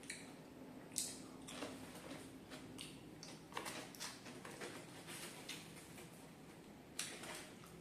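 Close-up mouth sounds of eating crispy fried duck: irregular crunches and wet chewing clicks, the sharpest crunches about a second in and near the end.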